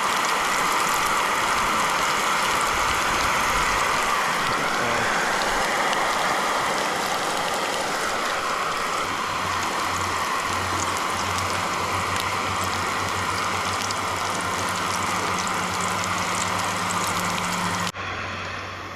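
Pieces of hardhead catfish deep-frying in hot oil: a steady sizzle full of fine crackles, which cuts off abruptly near the end.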